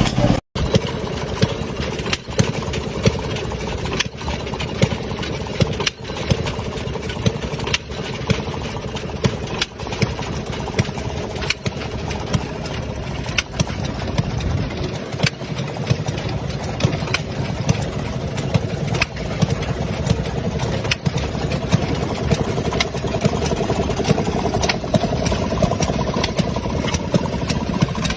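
A 1928 engine-driven washing machine running steadily, its small engine chugging, with sharp clacks recurring every second or so.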